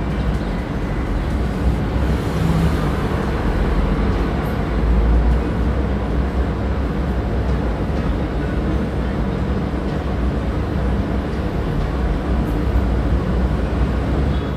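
Steady, loud low rumble of background noise, with no clear rhythm or tone.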